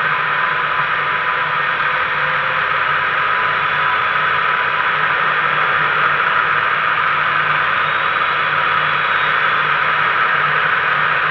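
Steady rush of wind over a wing-mounted camera in flight, with a Mainair flexwing microlight's two-stroke Rotax engine running steadily underneath.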